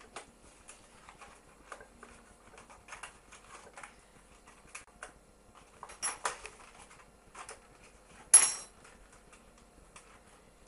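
Foil lid being pressed and crimped down around the rim of a disposable aluminium foil tray: scattered crinkles and clicks of thin foil, with a louder crackle about six seconds in and a sharp, loud one later on.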